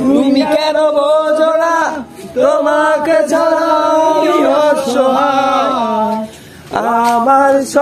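A voice singing a slow Bengali song without accompaniment, in long held notes with vibrato, breaking off briefly about two seconds in and again near the end.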